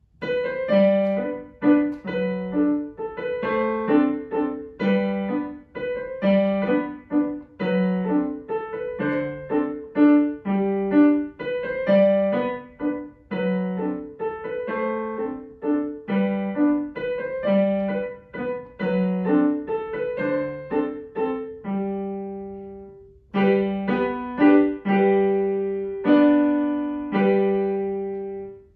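Digital piano playing a short piece: a right-hand melody over repeated low notes in the left hand. It pauses on a held note about two-thirds of the way through, then resumes and ends on a held note.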